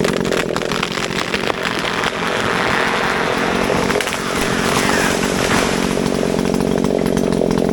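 Echo CS-620PW two-stroke chainsaw running steadily at high revs, cutting into the trunk of a large dead tree.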